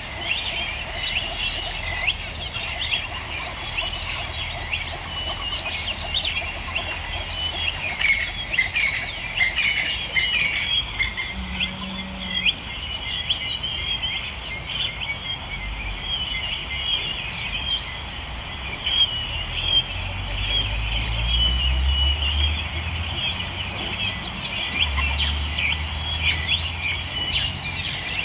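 Many small birds chirping continuously in dense, overlapping short calls, with a low wind-like rumble underneath that grows stronger in the second half.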